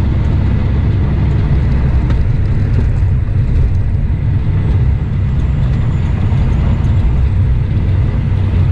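Semi-truck's engine and road noise heard inside the cab while driving at highway speed: a steady low rumble.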